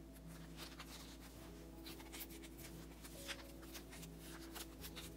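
Faint rustling, sliding and light crackling of photocards being handled and slipped into plastic binder-page sleeves, over a low steady hum.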